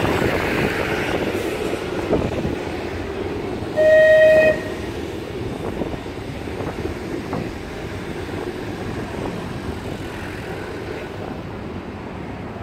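Blackpool Boat tram running along the street with a steady rumble and wind noise, and one short blast of its horn, under a second long, about four seconds in.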